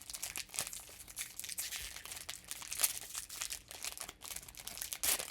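Plastic wrapper of a Panini Phoenix basketball card pack crinkling and tearing as it is opened by hand, in irregular crackles.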